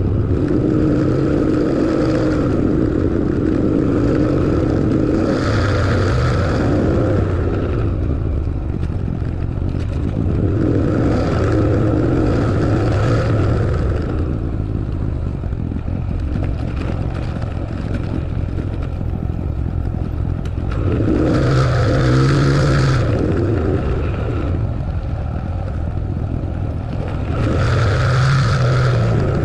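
A vehicle driving: steady engine hum under road noise that swells and eases every few seconds.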